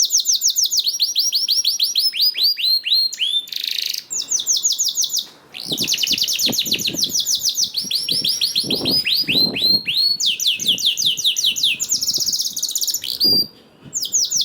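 Domestic canary singing: long trills of rapid, repeated, downward-sliding whistled notes, the phrases changing pace and pitch, with short breaks between them.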